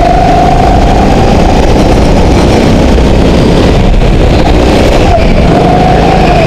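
Go-kart engine running hard, heard from on board, very loud and close to overloading the microphone. Its whine sags and rises with the throttle through the corners, dropping away about two seconds in and picking up again near the end.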